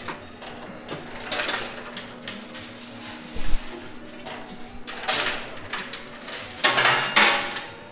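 Coins clinking and clattering in a coin pusher arcade machine, in several short bursts of metallic jingling, the loudest near the end. A low steady hum runs underneath.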